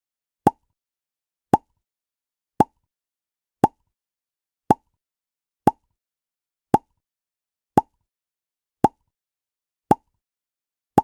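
A short 'bbok' pop sound effect, repeated about once a second, each pop quick and sharp with a brief mid-pitched ring.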